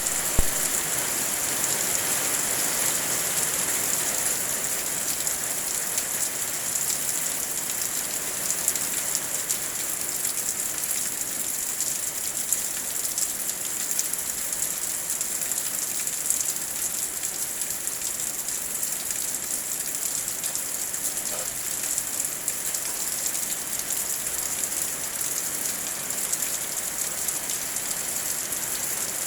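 Heavy rain falling steadily: a dense, even patter of drops with scattered sharper drop hits.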